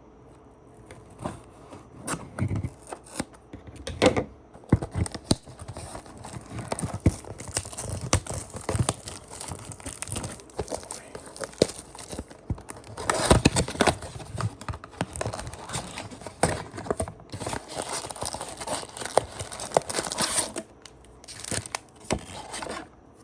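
Baseball card packaging being torn open and crinkled by hand: sharp tearing and crackling of wrapper and cardboard, with the loudest rip about thirteen seconds in.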